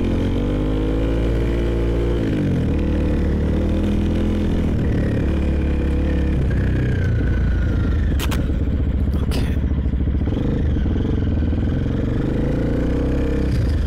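Motorcycle engine pulling away, its note rising for about two seconds, then dropping sharply as it shifts up and running on steadily under way. Two sharp clacks come partway through.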